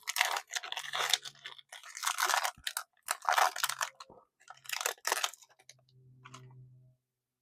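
A foil trading-card pack wrapper being torn open and crinkled by hand, in four bursts of crackling over about five seconds.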